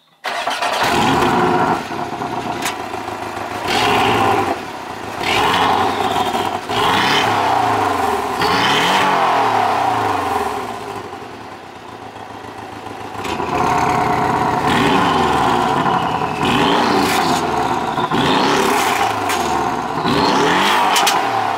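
Porsche 718 Cayman GTS's 2.5-litre turbocharged four-cylinder idling and being blipped through the exhaust, heard at the tailpipes: repeated short revs that rise and fall. The first revs come with the sports exhaust valves closed in Normal mode. After a quieter idle about halfway through, the rest come with the valves open in Sport mode.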